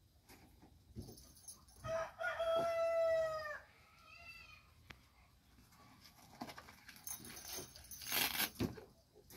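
One long, steady animal call lasting about a second and a half that bends down at its end, then a short fainter call. A loud clatter comes near the end.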